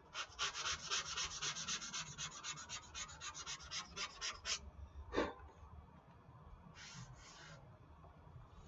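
Fine-grit sandpaper rubbing over spackle filler on a foam RC airplane wing: quick back-and-forth hand-sanding strokes, about five a second, for the first four and a half seconds. Then one stroke about five seconds in and a short swish around seven seconds, with little sound after.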